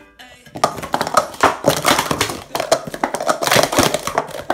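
Speed Stacks plastic cups clattering rapidly as they are stacked up and down in a sport-stacking cycle sequence, a fast run of light plastic clicks and knocks that starts about half a second in.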